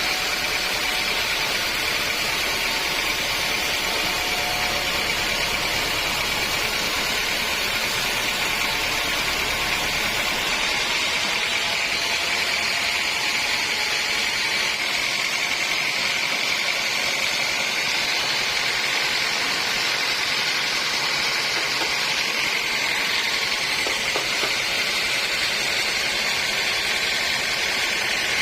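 Sawmill machinery running steadily, an even mechanical whine and hiss with no pauses. The deepest low hum drops away about eleven seconds in.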